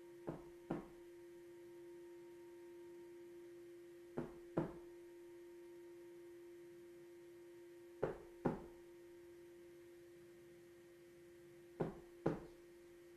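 Soft knocks in a heartbeat rhythm, a double beat ('one, two, pause') repeated four times about every four seconds, the second knock of each pair the louder. Under them a steady ringing tone holds throughout.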